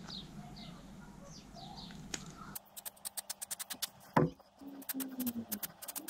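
Faint birds chirping, then a quick run of clicks and crackles from handling the black vinyl cover and the plastic door grab handle it is being cut and stretched over, with one louder knock partway through.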